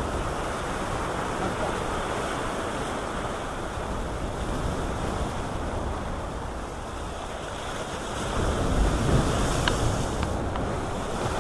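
Rough ocean surf washing and breaking against a rock breakwater, with wind buffeting the microphone; the surf swells louder about eight seconds in.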